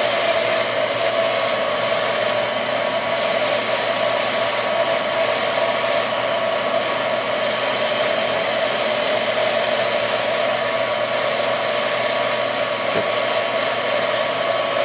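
Sharp CNC knee mill running under its ProtoTrak control, with a steady, even whirring hum and hiss from the spindle and machine.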